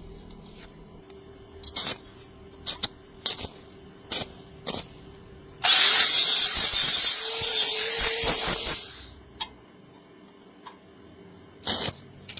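Several sharp metallic knocks, then a loud burst of harsh hissing tool noise lasting about three seconds and fading out, with one more knock near the end.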